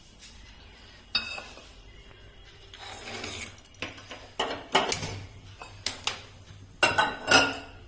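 Metal kitchen vessels and a spoon being handled, a string of sharp clinks and knocks with some scraping, most of them bunched in the second half.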